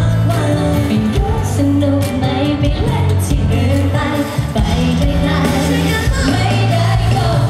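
Live pop band music through a stage PA: a woman sings the melody over electric bass, electric guitar and drums, with a steady beat.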